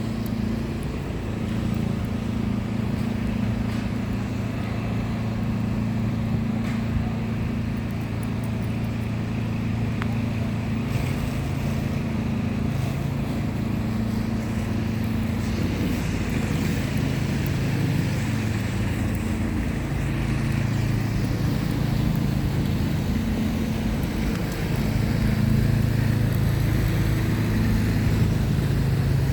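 A motor vehicle's engine running steadily with a low hum, over outdoor street noise.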